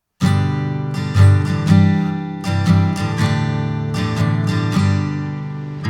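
Music: strummed acoustic guitar chords.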